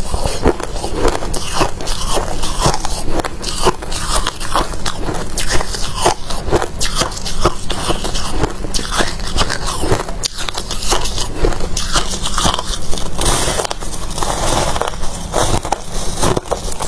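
A person biting and chewing crunchy freezer frost ice: a continuous run of crackling crunches, many each second.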